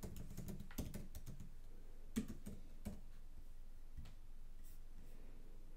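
Faint typing on a computer keyboard: a scatter of soft key clicks, one a little louder about two seconds in.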